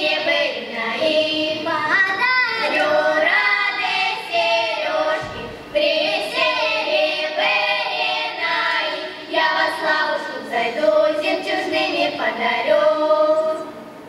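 Girls' folk ensemble singing a Cossack song together, with a short break about five seconds in. The song ends on a held note just before the end.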